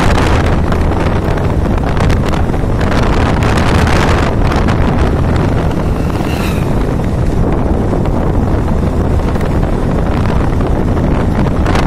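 Wind buffeting the microphone of a vehicle travelling at road speed, over a steady low engine hum. A brief faint high rising tone sounds about six seconds in.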